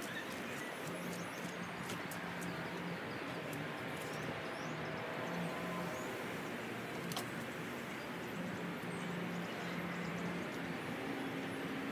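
Steady outdoor background noise: an even hiss with a faint low hum that comes and goes, and a few light clicks.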